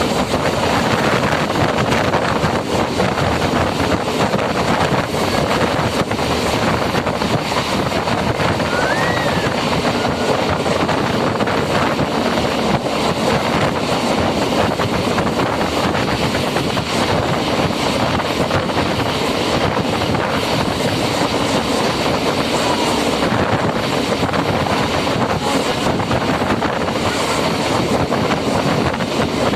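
Steady running noise of a MEMU electric train in motion: a continuous rumble and rush, with wind buffeting the microphone.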